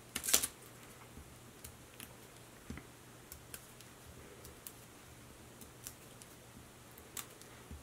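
Paper cardstock layers handled and pressed down by hand: a short cluster of crisp paper clicks and crinkles just after the start, then scattered faint ticks and taps.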